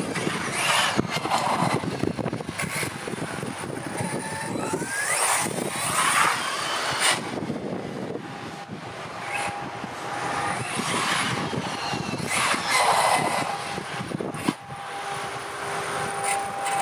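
Brushless motor of a Carson Virus 6S 1:8 RC buggy whining up and down in pitch again and again as the car accelerates and slows, over the rushing of its tyres on paving stones.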